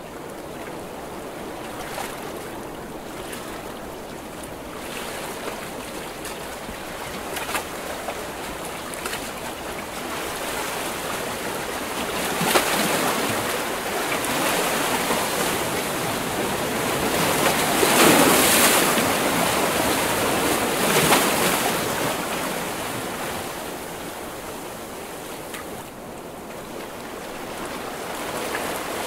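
Ocean waves breaking on the shore in a continuous wash of surf, swelling to the loudest crashes around the middle and easing off again near the end.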